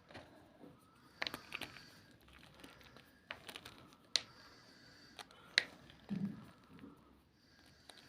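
Homemade gym chalk being crunched and crushed, with several separate sharp cracks and crumbling between them, and a short dull low sound about six seconds in.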